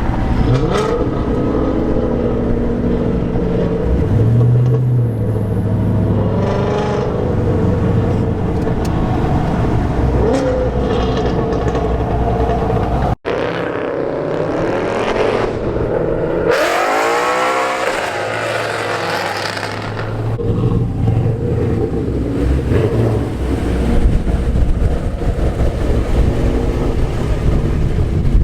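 Muscle-car engines running hard under acceleration. About two-thirds of the way through, a car sweeps past with a rising then falling pitch.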